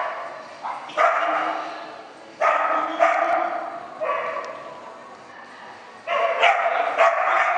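Dog barking repeatedly in short clusters, each bark echoing in the indoor arena.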